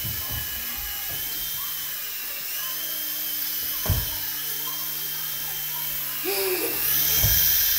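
Century UK Nano CX co-axial micro RC helicopter hovering, its small electric motors and twin rotors giving a steady high whine whose pitch shifts up and down a little. A single sharp knock about four seconds in.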